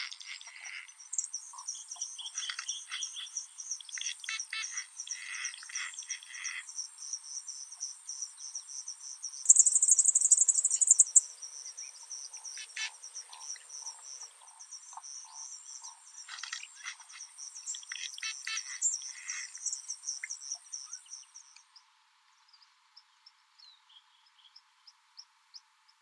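Twittering and buzzy zeh-zeh-zeh calls of southern masked weavers and white-winged widowbirds at a shared colony nest, coming in several chattering bursts over a steady, high, fast-pulsing buzz. A louder buzz lasts about two seconds near the middle. Everything cuts off suddenly about three quarters of the way through, leaving near silence.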